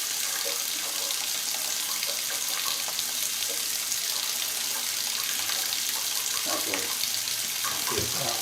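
Moen high-arc kitchen faucet running a steady stream of water into the sink, with a few faint knocks near the end.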